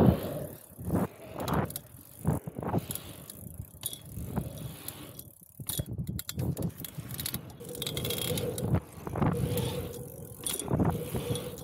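A mountain bike riding over the rollers of an asphalt pump track: tyre noise on the tarmac swells and fades every second or two, mixed with rattles and clicks from the bike.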